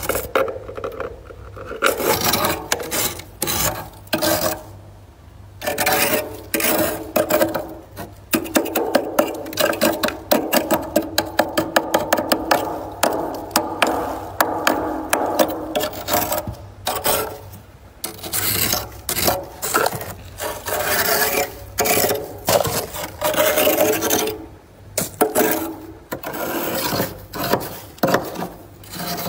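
Thick freezer frost being scraped off the inside walls of a freezer: rough, rasping strokes in bursts with short pauses, and a run of quick strokes, about three a second, in the middle.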